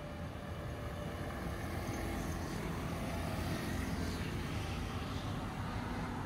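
City street traffic: a steady road noise with a vehicle passing close by, swelling to its loudest about four seconds in and easing slightly after.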